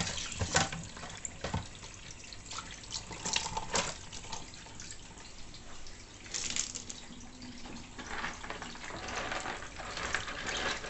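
Tap water running over shellfish being rinsed clean, with scattered knocks and clicks as the whelk, limpet and mussel shells are handled.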